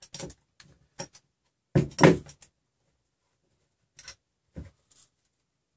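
Hands handling a plastic extruder assembly and small metal parts and tools on a workbench: scattered clicks and knocks, loudest in a short cluster about two seconds in.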